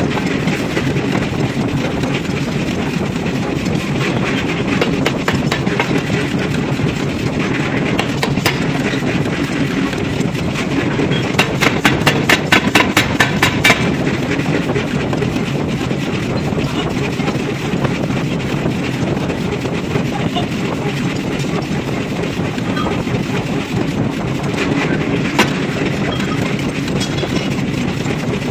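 Forging hammer running steadily as it works a hot steel ring forging in its die. About halfway through comes a quick run of rapid hammer blows lasting a few seconds.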